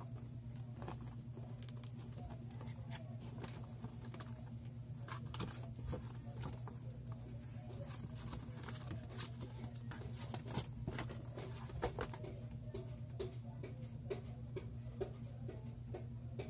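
Hands handling a Samsung Galaxy Note 9 cardboard retail box, scattered clicks, taps and scrapes as the lid is lifted off and the phone taken out, over a steady low hum.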